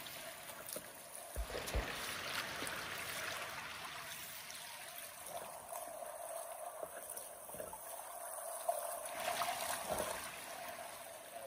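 River water rushing and splashing in a steady noisy stream, with a couple of dull knocks about a second and a half in and again near the end.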